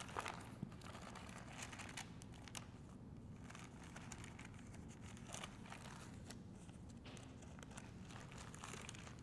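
Faint rustling of thin Bible pages being leafed through: a scattered run of soft paper crinkles and flicks over a low room hum.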